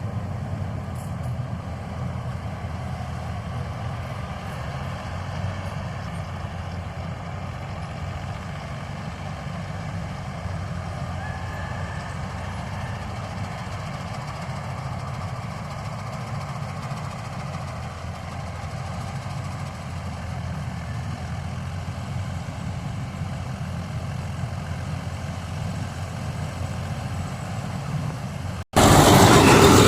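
Balkar combine harvester's engine running steadily with a low rumble. Near the end the sound cuts off abruptly and jumps to a much louder, harsher engine noise.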